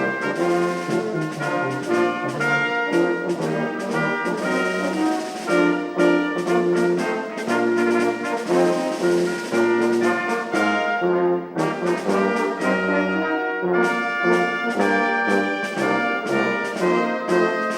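A church orchestra plays a hymn arrangement with brass to the fore, in sustained chords over a steady beat. A bright hiss builds through the middle and cuts off suddenly about two-thirds of the way in.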